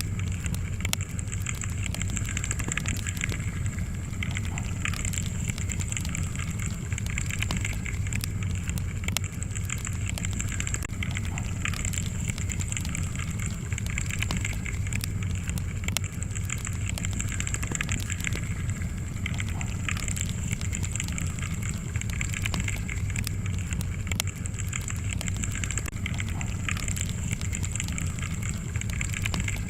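Wood log fire crackling, with frequent small snaps and pops over a steady low rumble.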